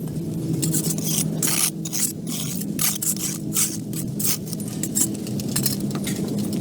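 A steady mechanical hum, like a motor running, with irregular scraping and clattering over it.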